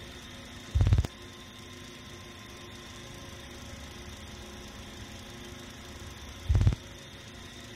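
Film sound design: a steady low drone with hiss, broken twice by a short, deep boom, about a second in and again near the end.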